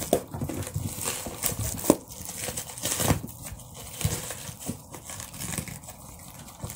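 Clear plastic wrap around a small cardboard parcel box crinkling as hands pull at it, in irregular crackles and sharp clicks.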